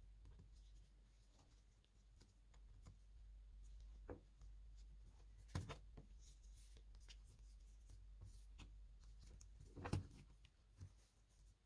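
Faint rustling of thread drawn through stitching holes in leather during hand sewing, with three soft, sharp taps, the loudest near the end.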